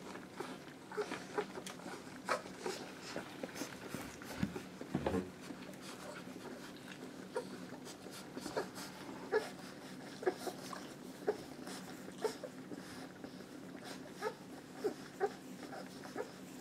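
A litter of young puppies nursing from their mother, giving many short squeaks and grunts as they suckle.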